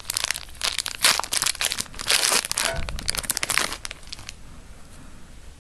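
Foil wrapper of a Yu-Gi-Oh booster pack crinkling as it is pulled open by hand, stopping about four seconds in.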